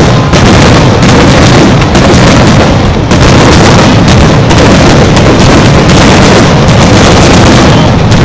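Fireworks display: aerial shells bursting in quick succession, a very loud, unbroken run of bangs and crackle.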